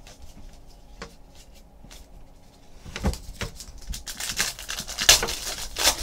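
Light clicks of trading cards being handled, then a foil trading-card pack crackling and rustling as it is torn open, starting about halfway through and loudest near the end.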